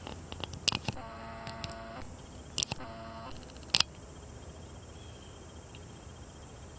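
A few sharp clicks and two short, steady mechanical whines of about a second each, like a small motor such as a camera's zoom.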